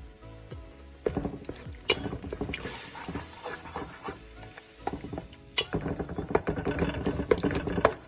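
A plastic spatula stirring and scraping a thick flour-and-milk sauce around a steel pan, with irregular knocks and scrapes against the pan, the loudest about two seconds in and again past the halfway point.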